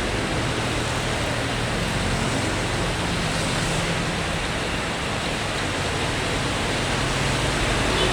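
Steady rushing noise of a vehicle travelling on a rain-wet road, with a low engine hum underneath.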